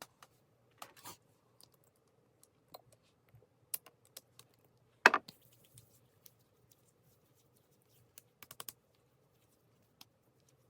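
Computer keyboard typed in short, irregular bursts of clicks, with one louder knock about five seconds in.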